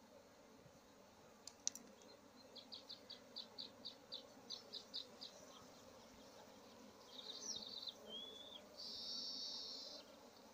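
Honeybees buzzing faintly and steadily around the comb being harvested. High short chirps come about three a second in the middle, then a trill and a buzzy high note near the end.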